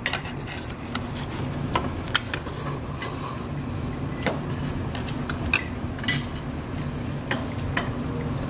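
Metal chopsticks clinking and scraping against a large stainless steel bowl as noodles are stirred and lifted. The sharp clicks come irregularly over a steady low hum.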